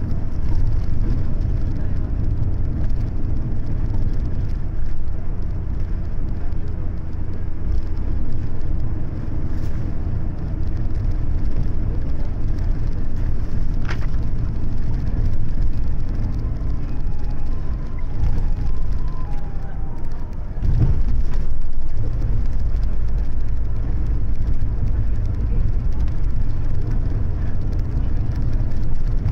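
Steady low rumble of a highway coach's diesel engine and tyre noise, heard from inside the passenger cabin while driving through town. About two-thirds of the way through, the rumble briefly drops, then comes back louder as the bus pulls away again.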